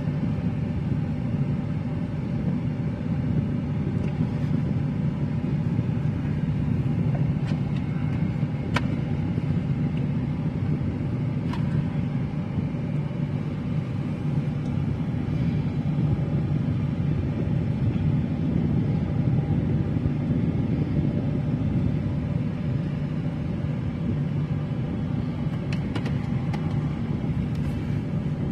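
Steady low rumble of a car heard from inside the cabin while it drives, with a few faint ticks.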